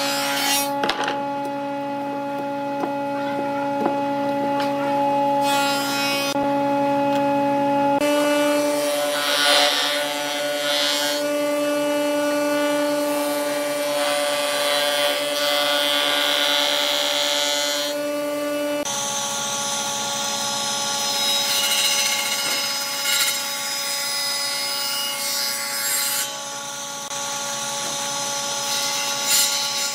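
Woodshop power tools over a steady motor hum: a screwdriver tightening hose clamps around a glued-up wooden block, then, about eight seconds in, a jointer planing the block, and later a table saw cutting through it.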